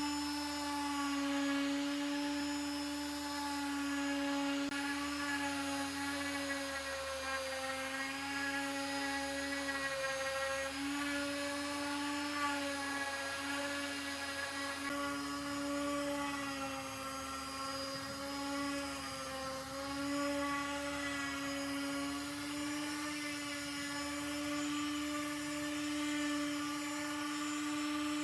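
Electric motor of a handheld power tool running steadily at high speed with a continuous whine, its pitch dipping slightly now and then as if under changing load.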